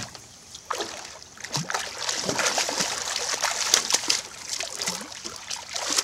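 Blue catfish hooked on a trotline, thrashing and splashing at the water's surface beside the boat: irregular splashes that get busier after the first second or so.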